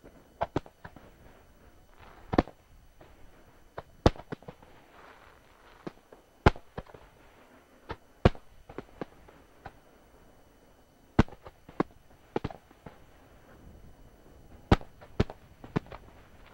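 Aerial firework shells bursting, a string of sharp booms at irregular intervals, about a dozen loud ones with smaller cracks between them.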